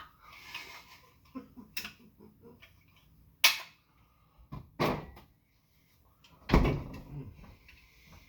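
A few sharp clacks and knocks from things being handled and set down on a hard surface during a close-miked meal, the loudest about three and a half, five and six and a half seconds in, the last with a dull thud; faint small eating noises between them.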